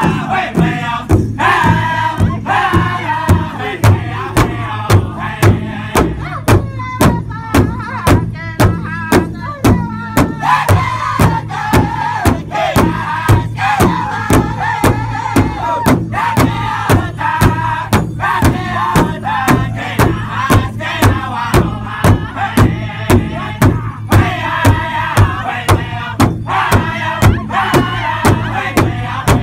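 Powwow drum group singing a crow hop song: several men beat a large hide-covered powwow drum in unison at about two strokes a second while singing together in high, strained voices.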